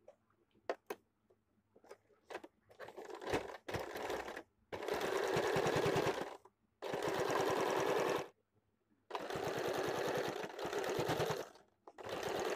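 Domestic electric sewing machine stitching a seam in three runs of one and a half to two seconds each, with brief pauses between them, and a fourth run starting near the end. A few light clicks and taps come first.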